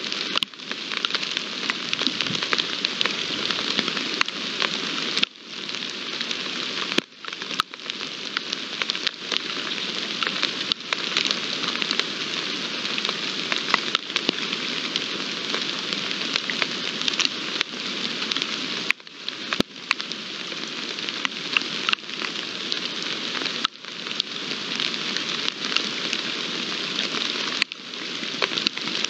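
Steady rain falling: a dense hiss of drops with many small ticks of drops landing close by. It dips briefly a few times.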